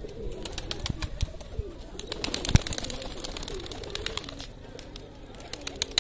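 A flock of domestic pigeons cooing while they feed, with many sharp clicks among them; the clicks come thickest about two to three seconds in.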